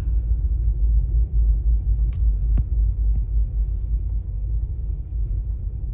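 Wind buffeting the microphone: a loud, uneven low rumble, with a couple of faint clicks a little over two seconds in.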